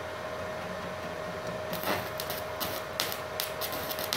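Stick-welding arc from a small MultiPro inverter welder struck in a run of short spot welds: irregular crackling sputters starting a little under two seconds in, over a steady hum.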